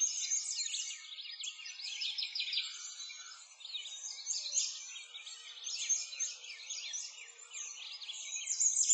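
A chorus of small birds chirping, with many short, quick calls overlapping one another throughout.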